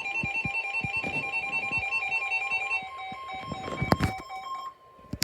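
NOAA Weather Radio warning alert: the steady 1050 Hz attention tone, heard under fast, evenly pulsing electronic beeps, both cutting off suddenly about four and a half seconds in. A few sharp clicks come just before the cut-off.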